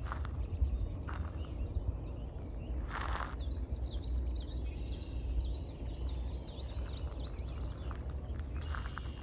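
A songbird singing a rapid run of high chirps that starts about three seconds in and goes on for some five seconds, over a few footsteps on a path and a steady low rumble.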